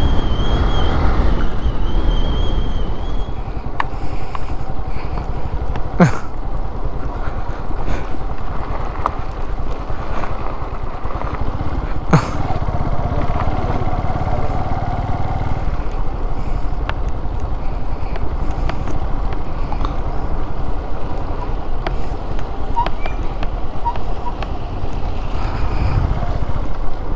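Motorcycle engine running steadily as the bike is ridden along a road, with two sharp knocks about six and twelve seconds in.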